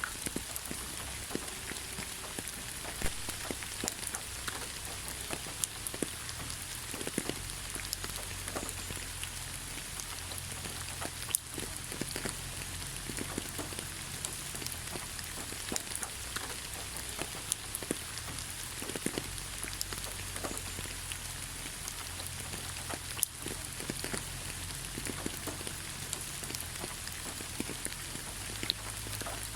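Steady rain falling on leaves: a constant hiss with many scattered drop taps, a few louder single drops standing out.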